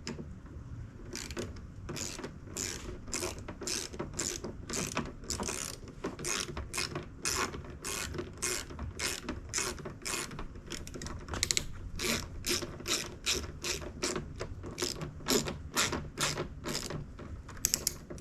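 Hand ratchet clicking in quick, evenly repeated strokes, about two a second, starting about a second in, as a fastener holding the door handle is tightened down.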